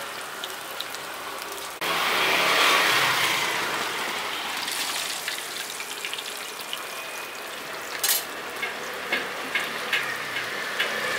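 Hot oil sizzling steadily as dough fries, the sound changing abruptly about two seconds in. A few sharp clicks sound in the second half.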